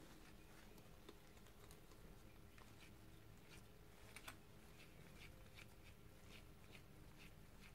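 Near silence with faint, irregular small clicks of a bolt and metal parts being handled and threaded in by hand on a Yamaha TDR250 power-valve housing; the clearest click comes about four seconds in.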